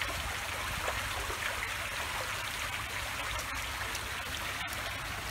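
Steady trickling and lapping of swimming-pool water as a dog paddles through it.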